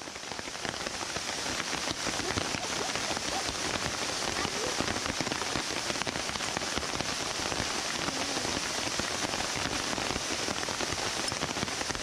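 Steady rain falling, a dense patter of drops hitting nearby surfaces.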